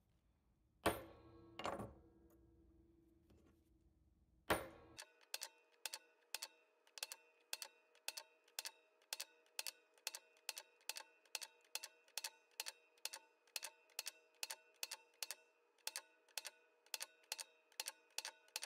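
A few sharp metal strikes of a claw hammer on a steel letter stamp, with a short ring after each, in the first few seconds. Then an even ticking of about three beats a second with steady ringing tones, which keeps going after the hammer is laid down: background music.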